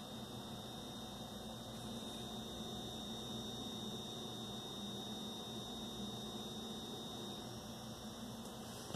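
Steady electrical hum from the running power setup under load, with a thin high whine and a hiss over it, unchanging throughout.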